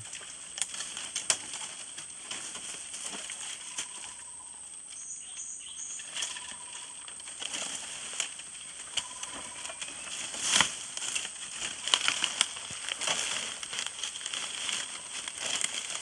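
Dry bamboo leaves and stems rustling and snapping as a person pushes out through a bamboo clump, with scattered sharp clicks and a woven plastic sack crinkling; busier and louder in the second half.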